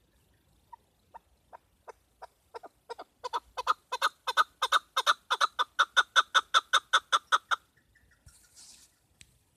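Chukar partridge calling: a long series of clucking notes that starts slow and soft, speeds up and grows louder to about four notes a second, then stops near the end. A brief hiss follows.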